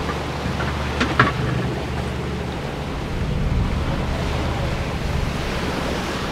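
Wind and breaking sea rushing around a sailboat under way in rough water, with wind buffeting the microphone and a steady low hum underneath. A couple of brief knocks sound about a second in.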